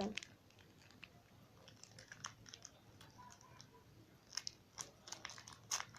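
Faint crinkling and crackling of a foil trading-card pack wrapper being worked at to tear it open, with a few sharper crackles near the end.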